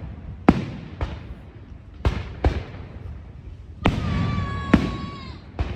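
Fireworks going off: about seven sharp bangs at uneven intervals, each followed by a rumbling echo, with a steady whistle about four seconds in that lasts just over a second.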